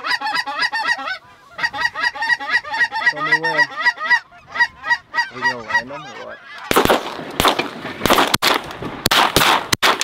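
Rapid goose honking as a flock comes in to the decoys. About seven seconds in, a quick volley of shotgun shots breaks out, several guns firing close together, and it is louder than the honking.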